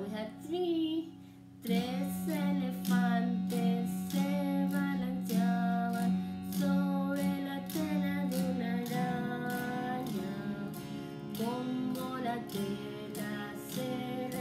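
A woman sings a Spanish children's song about elephants while strumming chords on an electric guitar. About a second in, the guitar drops out and she sings briefly alone, then the strumming comes back.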